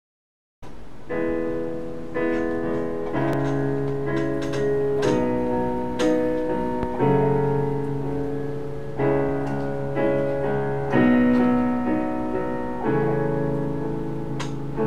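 Slow, gentle instrumental intro starting about half a second in: soft chords played one after another, a new chord roughly every second, ringing on over a held low bass note.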